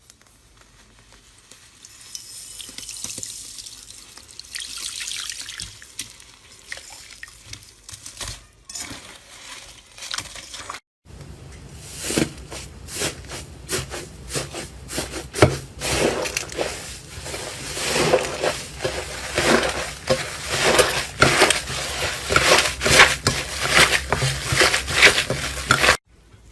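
Slime being squeezed and worked by hand, with wet squelching and sticky popping. Softer and hissier for the first ten seconds or so, then, after a short break, a dense run of rapid crackling pops.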